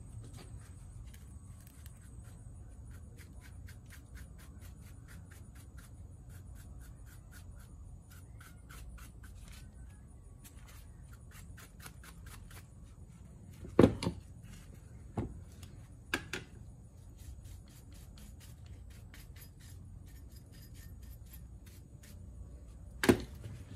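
Light metallic clicking and clinking from hand work on a removed car starter motor, with a few louder knocks of metal parts near the middle and near the end.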